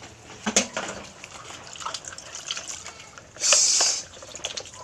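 Hands washing chunks of boiled horse meat in a plastic basin of water: wet squelching, splashing and dripping, with a sharp knock about half a second in. A brief loud rush of water comes about three and a half seconds in.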